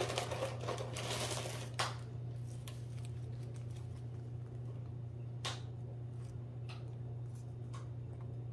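Rustling as vanilla wafer cookies are taken from their box for about the first two seconds, then scattered light clicks and taps as the wafers are set against the rim of a ceramic bowl. A steady low hum runs underneath.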